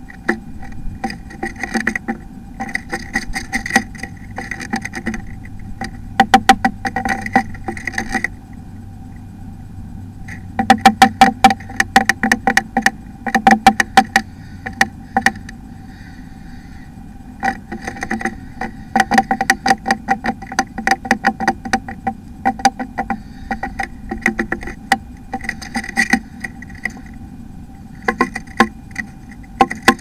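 Blue tit inside a wooden nest box, scratching and pecking at its nest material: bursts of rapid clicks and taps that come and go, over a steady electrical hum.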